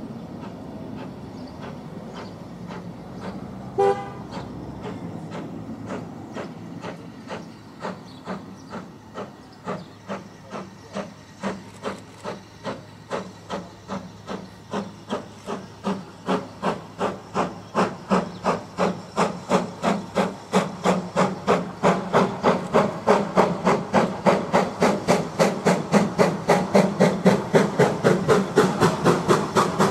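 Steam locomotive starting a train and working hard: a short whistle toot about four seconds in, then exhaust beats that quicken from about two to nearly four a second and grow steadily louder as it comes closer.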